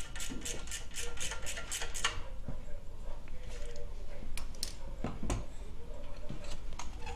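Ratchet wrench clicking at about four clicks a second as a muffler mounting bolt is turned. It stops about two seconds in, and a few scattered tool knocks and clicks follow.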